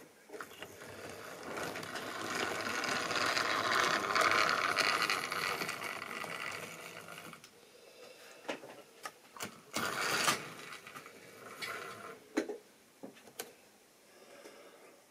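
OO-gauge model steam tank locomotive running on the track, its small electric motor and gears whirring, rising to a peak and then fading. After that comes a scatter of sharp clicks as it runs on over the rail joints and points.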